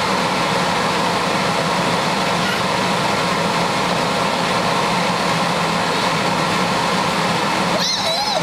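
Steady drone of an inflatable bounce house's electric air blower keeping it inflated. A brief high-pitched child's voice cuts in near the end.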